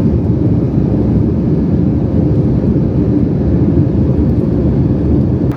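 Jet airliner engine noise heard from inside the cabin: a loud, steady, deep rumble with a faint hum held over it.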